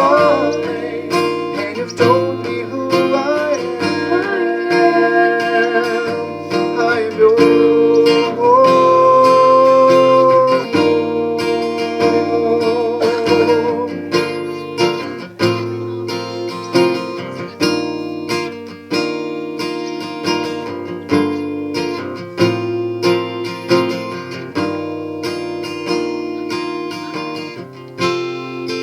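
Worship song music: for about the first half a voice holds long notes with vibrato over acoustic guitar, then the guitar accompaniment carries on with steady strummed chords.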